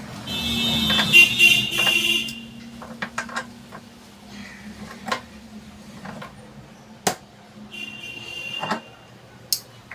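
Gas stove's burner jet fittings being tightened with a hand tool: a high squeaking of metal for about two seconds near the start and again briefly near the end, with scattered sharp metallic clicks and taps.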